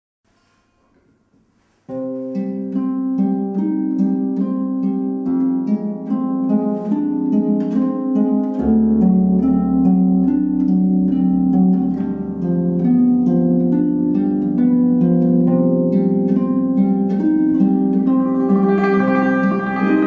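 Harp music: plucked notes of a slow melody with chords, starting suddenly about two seconds in after near silence. A low sustained bass tone joins about a third of the way through, and the texture grows brighter near the end.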